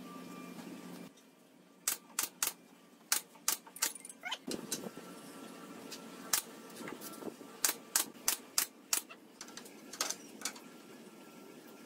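Irregular sharp clicks and knocks, a dozen or so, from pine pallet boards as gable roof panels are handled and fitted onto a slatted wooden dog-house frame, with a low hum for about the first second.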